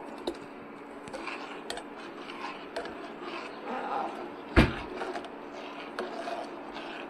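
Steel spoon stirring milk and vermicelli in a steel pot, with light clinks and scrapes against the metal and one sharper, louder knock about four and a half seconds in. A steady low hum runs underneath.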